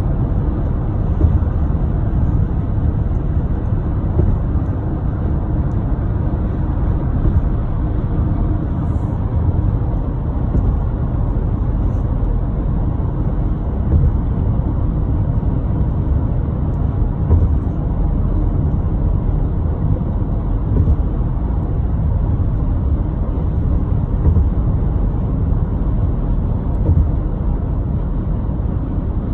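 Steady low rumble of road noise heard inside a moving car's cabin: tyres and engine at highway speed, unchanging throughout.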